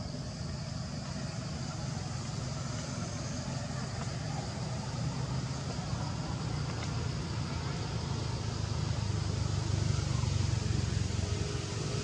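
Outdoor background noise: a steady low rumble that swells about ten seconds in, with a faint high hiss over it.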